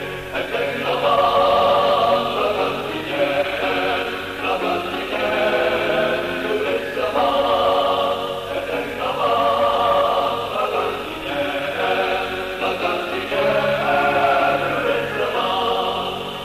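Music with a choir singing slow, held phrases.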